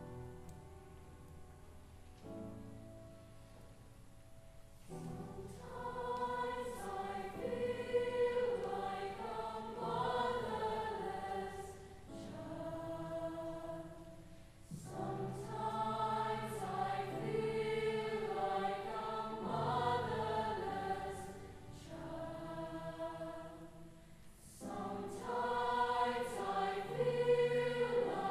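A youth choir singing, soft for the first few seconds and then swelling into full phrases, with two short breaks between phrases.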